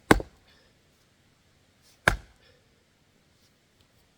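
Two axe blows striking a firewood log, about two seconds apart, each a sharp, short crack; the log does not split yet and is hard going.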